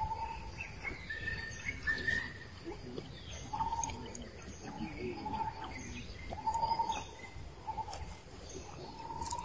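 A bird calling with short, level whistled notes, repeated every second or so, over a faint outdoor background hiss. Two higher notes come about one and two seconds in.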